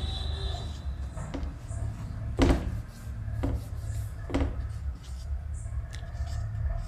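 Marker writing on a whiteboard: three sharper strokes or taps about a second apart around the middle, with fainter scratches between, over a steady low hum.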